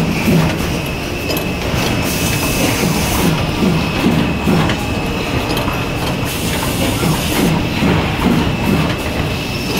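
Automatic double wire-o notebook binding and punching machine running. It makes a continuous mechanical clatter of repeated low knocks, with a thin, steady high-pitched whine over it.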